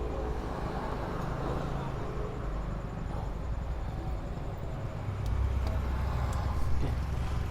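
Low, steady vehicle rumble, growing louder about five seconds in.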